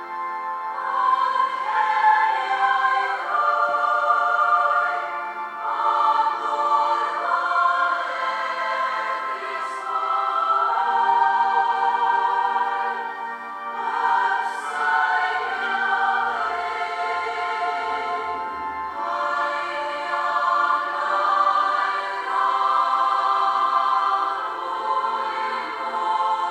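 Welsh male-voice choir singing a hymn in sustained phrases, with brief breaths between the lines.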